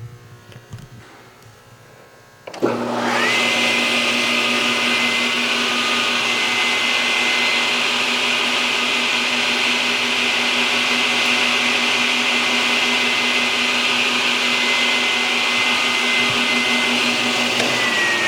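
SawStop 10-inch industrial table saw with a 5 hp three-phase motor, switched on about two and a half seconds in: it spins up to speed within a second, with a whine rising to a steady pitch, and runs steadily at no load. Near the end it is switched off and the whine starts to fall as the blade winds down.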